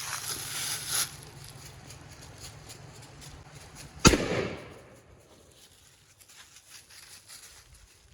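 A single gunshot about four seconds in, sharp and loud, with a short echo trailing off over about a second, over faint rustling outdoors.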